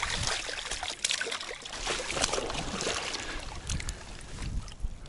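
Water splashing and trickling as a hooked asp thrashes at the surface and is then held in the shallows by hand for release. The splashing eases off after about three seconds.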